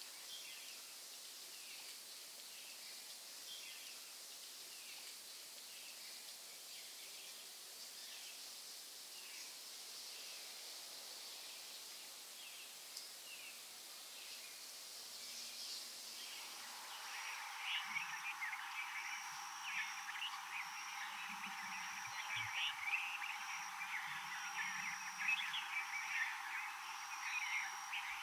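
Forest ambience: faint, repeated chirping calls over a steady hiss. About two-thirds of the way in, the sound changes suddenly to a louder, busier chorus of chirping and croaking calls with a high note pulsing at a regular beat.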